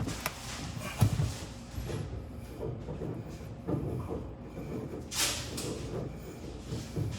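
Knocks and light handling clatter of a natural gas regulator being positioned and started onto a threaded gas pipe fitting, with a sharp knock about a second in and a brief rustle near the end.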